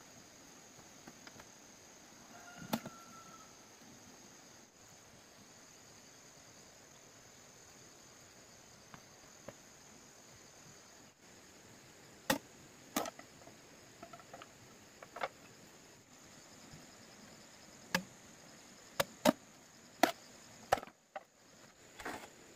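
Blade chopping bamboo: about ten sharp, separate strikes, one a few seconds in and the rest coming in irregular bunches through the second half. Steady high chirring of insects goes on underneath.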